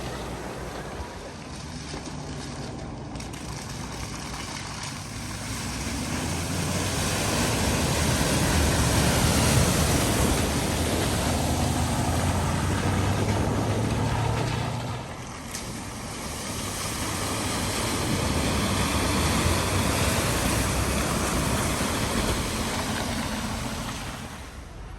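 Vehicles driving through deep floodwater at a ford, engine noise mixed with the rushing wash of water pushed aside. The sound swells and fades twice, as if two crossings pass one after the other.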